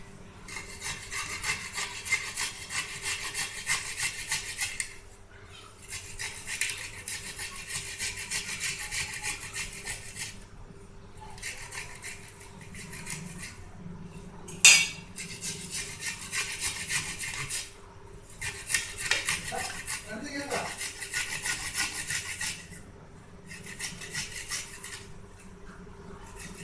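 Peeled fresh ginger being grated on a hand grater: runs of quick, even scraping strokes lasting a few seconds each, broken by short pauses, with one sharp knock about fifteen seconds in.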